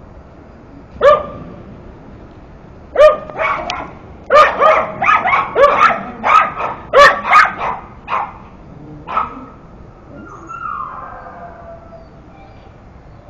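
A dog barking: one bark, then a rapid run of about a dozen loud, sharp barks over some six seconds, ending in a fainter drawn-out whine.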